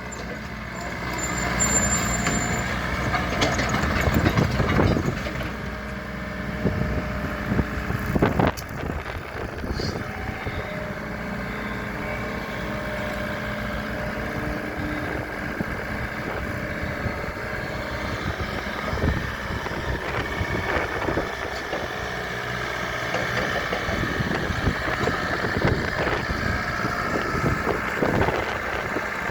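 IHI 55N2 midi excavator's diesel engine running steadily, with a louder spell about four to five seconds in and a sharp knock about eight seconds in.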